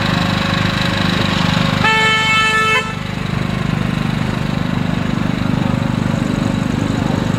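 A horn sounds one steady, single-pitched blast of about a second, cut off sharply, over an engine running steadily.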